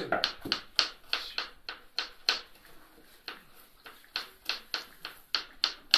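A hand mixing minced meat filling in a bowl, giving repeated short, sharp wet smacks at about three a second.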